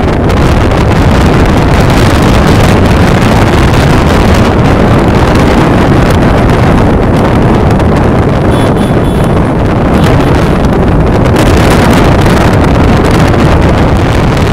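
Strong sandstorm wind blowing across the phone's microphone: loud, continuous rushing with a gusty low rumble.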